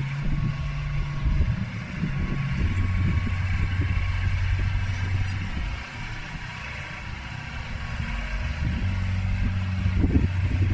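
Yanmar B22 mini excavator's diesel engine running under changing load as the hydraulics are worked: its note drops a few seconds in and comes back up near the end, with a few knocks. The audio is sped up to double speed, which raises its pitch.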